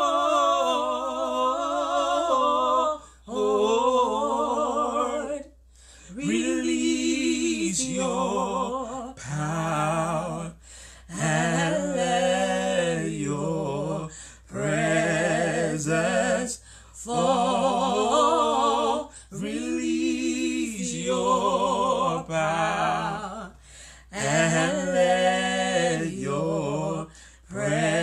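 A man and a woman singing a slow worship song together without accompaniment, in sustained, wavering phrases of a few seconds each with short breaths between them.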